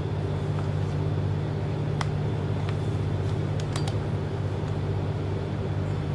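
Steady low machine hum, with a few faint clicks about two and four seconds in.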